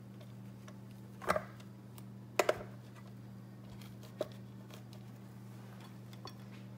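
Kitchen tongs knocking and clicking against the plates of an open electric waffle iron while the waffle is pried loose: a few sharp clicks, two of them close together about two and a half seconds in, over a steady low hum.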